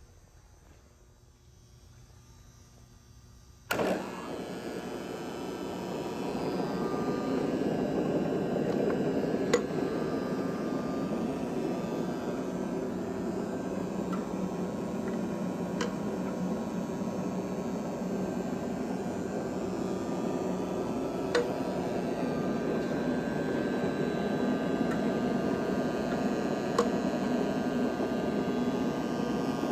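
Cincinnati 12" x 36" cylindrical grinder switched on with a click about four seconds in, its motors spinning up over a couple of seconds and then running steadily. A faint tick comes about every six seconds.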